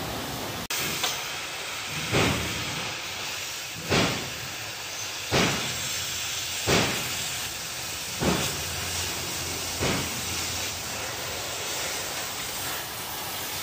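Oxy-fuel cutting torch hissing steadily as it burns through a steel truck chassis rail, with a louder rush coming back about every second and a half.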